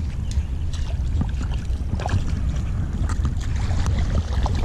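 Shallow river current swirling and rushing around a wading angler's legs, with a steady low rumble and small scattered splashes as a hooked brown trout is drawn in toward the net.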